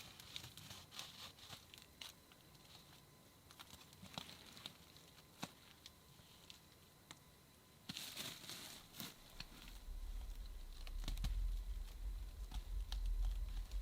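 Scattered light clicks and crinkling rustles, with a louder burst of crinkling about eight seconds in. A low rumble starts about a second later and grows louder.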